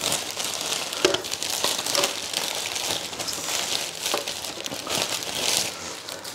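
Clear plastic wrapping bags crinkling and rustling as they are pulled off and tossed aside, with a few sharper clicks.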